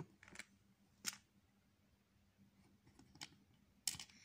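Plastic Lego plates clicking as they are pressed and snapped together by hand: several short, sharp clicks, one near the start, one about a second in and a few close together near the end.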